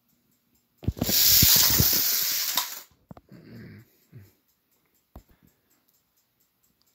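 Two die-cast Trackmaster push-along toy engines released down a plastic track ramp. They make a loud rattling rumble that lasts about two seconds and then cuts off, followed by a few lighter clatters and knocks.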